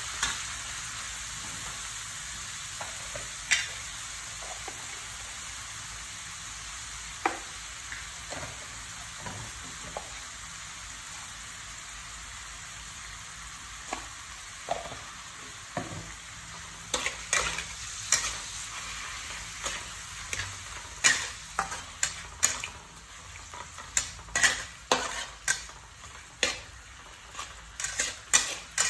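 Sliced beef and garlic sizzling in a frying pan, with a metal spatula scraping and knocking against the pan as the meat is stirred. The scraping is occasional at first, then quick and frequent through the second half.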